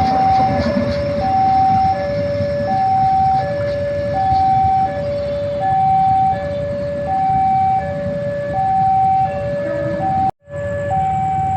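Two-tone electronic warning alarm alternating a higher and a lower note, about one high-low cycle every one and a half seconds, over a low background rumble. The sound cuts out for a moment near the end.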